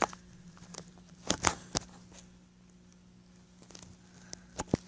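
Scattered knocks and clicks of objects being handled and set down: a loud cluster about a second and a half in and several more near the end, over a faint steady hum.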